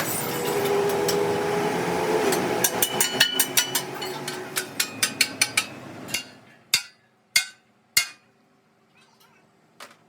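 Hammer striking metal in a fast run of sharp, ringing blows, then slowing to a few single blows spaced over half a second apart. A noisy workshop background sits under the first half and drops away about six seconds in.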